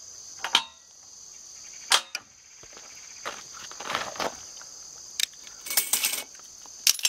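Scattered metal clicks and knocks of vice grips and fittings being worked on a well pump's sucker rod as the clamped rod is raised and released, with one sharp knock about two seconds in and a quick run of clicks near the end. A steady high chirring of insects runs underneath.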